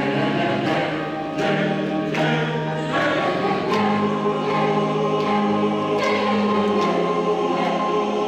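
Women's choir singing sustained chords with piano accompaniment.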